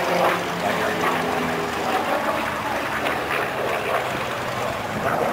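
Chance Vought Corsair's Pratt & Whitney R-2800 radial piston engine droning steadily as the fighter flies its display.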